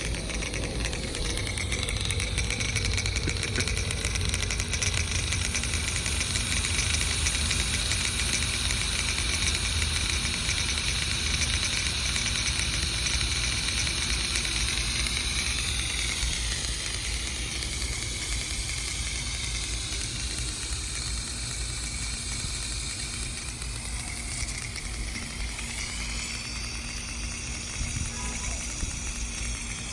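Rain-O-Matic No. 10 ball-drive rotary sprinkler running: a steady hiss of water spraying from its nozzles, the tone of the hiss sweeping slowly up and down a couple of times as the head turns.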